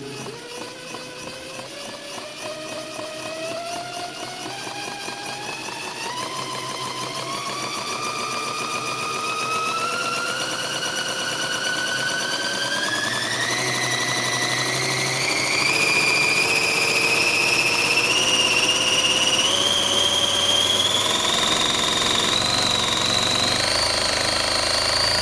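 Pfaff 230 sewing machine run by its new motor drive, speeding up smoothly from slow stitching to its top speed of about 1800 stitches a minute. A whine rises steadily in pitch throughout, and the running grows louder as it speeds up.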